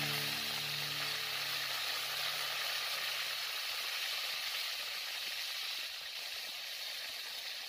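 Battered tempe sizzling in hot oil in a wok, a steady frying hiss.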